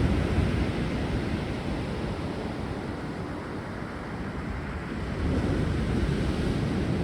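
Sea surf breaking and washing on a beach: a steady rush of water that swells near the start and again about five seconds in.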